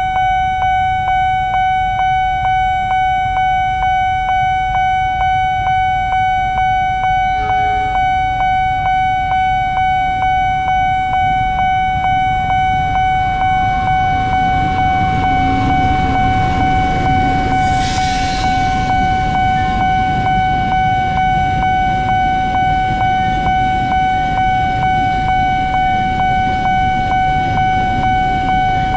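A level-crossing warning bell rings in a steady rhythm of repeated electronic dings. Under it, a diesel locomotive-hauled train approaches and passes as a building rumble, with a short hiss about eighteen seconds in.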